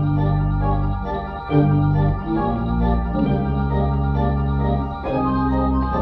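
Pipe organ playing held chords over a deep bass line, the harmony moving on every second or two.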